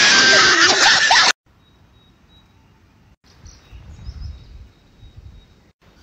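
A loud burst of static-like glitch transition noise that cuts off abruptly about a second in. After a short gap comes a faint outdoor background with a low rumble and a thin high tone.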